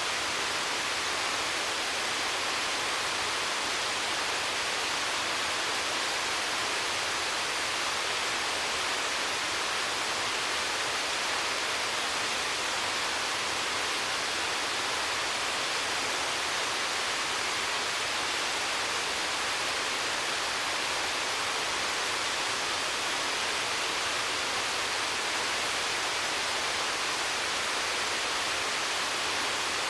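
Waterfall rushing: a steady, even hiss of falling water, strongest in the upper range with little low rumble.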